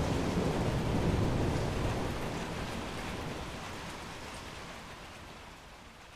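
A roll of thunder dying away under steady rain, the deep rumble loud at first and fading out over several seconds.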